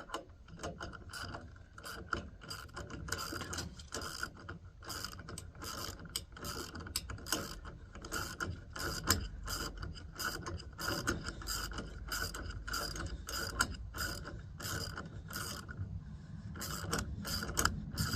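Socket ratchet with a 16mm socket clicking in quick runs as it is swung back and forth, running a nut down on a bolt, with a brief pause near the end.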